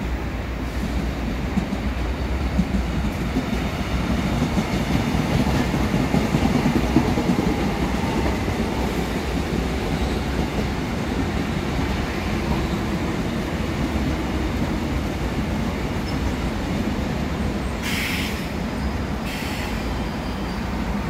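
Seoul Line 1 rheostat-control electric train passing close by: a steady rumble of wheels on the rails, a little louder a few seconds in, with two short hisses near the end.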